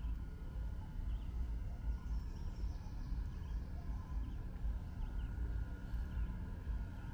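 Outdoor woodland ambience: a steady low rumble on the microphone while walking, with a few faint, brief bird chirps now and then.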